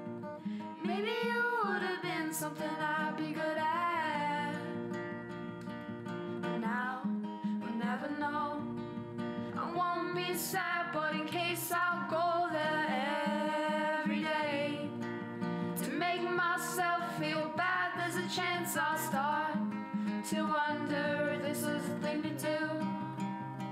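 A song with strummed guitar and a singing voice.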